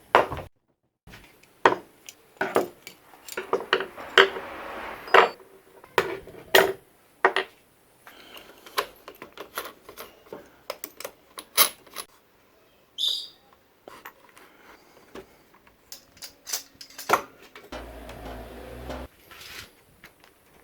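Irregular clinks and knocks of hard objects being handled, like metal tools or utensils clattering, with a brief high squeak about two-thirds of the way through.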